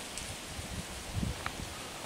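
Rustling of dry leaves and brush, with a soft low thump a little over a second in and a few faint clicks, over a steady hiss.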